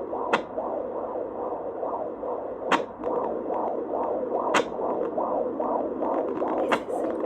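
Fetal heartbeat picked up by a handheld home fetal Doppler and played through its speaker: a fast, even pulse of about two and a half beats a second. Four sharp clicks cut through it.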